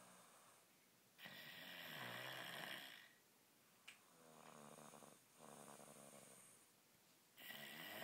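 Small boy snoring in his sleep while sick, sounding like an adult snorer. Louder, harsher snores about a second in and again near the end alternate with softer ones, one breath every few seconds.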